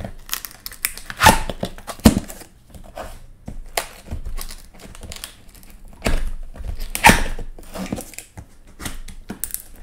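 Cardboard box of a Cricut Maker 3 being opened by hand: flaps pulled and folded back, cardboard scraping and crinkling, with irregular thunks and knocks. The loudest come about a second, two seconds and seven seconds in.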